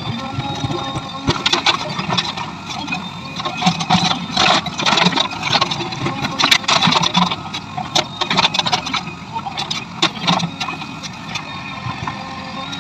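JCB 3DX backhoe loader's diesel engine running as its backhoe bucket digs in a trench, with frequent irregular clanks and scrapes of the bucket against soil and stones.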